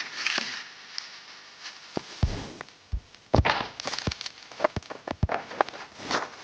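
Irregular knocks and short rustling swishes, like close handling sounds, about a dozen spread unevenly through the stretch.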